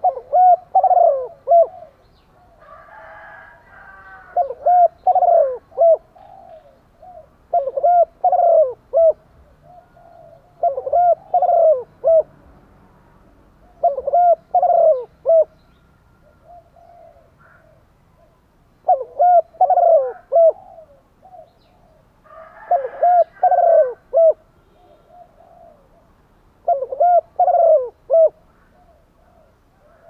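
Female spotted dove cooing: a short phrase of three or four coos, repeated every three to four seconds, eight phrases in all. It is the hen's call, used to rouse male doves.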